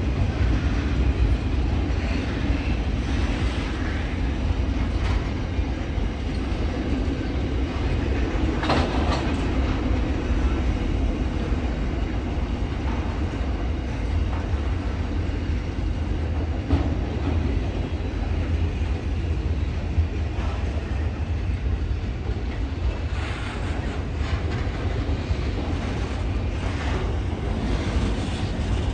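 Freight train rolling past: a steady heavy rumble of steel wheels on the rails, with occasional irregular clacks as wheels cross rail joints.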